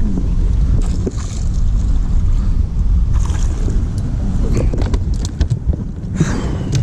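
Steady low rumble on a fishing boat on open water, with scattered clicks and knocks as a bass is swung aboard and the rod and landing net are handled on the deck.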